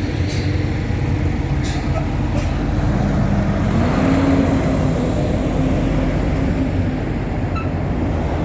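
Road traffic: a motor vehicle's engine running close by over a steady low rumble, its pitch rising a few seconds in as it pulls away.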